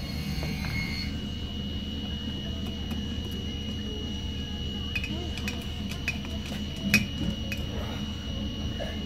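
Light clicks and taps of tools and small metal carburetor parts being handled during a carburetor rebuild. They come in scattered from about five seconds in, the sharpest about seven seconds in, over a steady background hum with a faint high whine.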